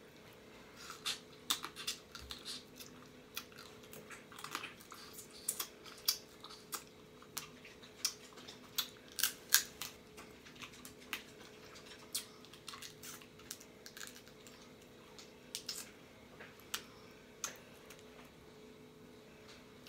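Blue crab shells being cracked and pulled apart by hand while eating, with chewing: irregular sharp cracks and clicks, thickest in the middle and thinning out toward the end.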